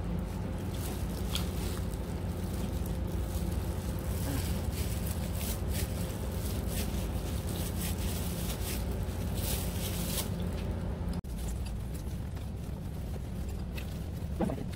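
A plastic food-prep glove crinkling in short scratchy rustles as a hand pulls apart cooked soy sauce chicken, over a steady low hum. Near the end comes a brief high-pitched call.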